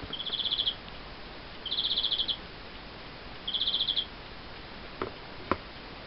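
Bird-song wall clock playing a recorded bird call through its small speaker: three short trills of rapid high chirps, about a second and a half apart. Two light clicks follow near the end.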